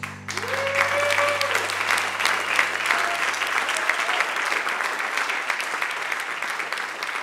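Audience applauding, starting just after the song ends. The last chord of an amplified acoustic guitar rings on underneath and fades out over the first few seconds.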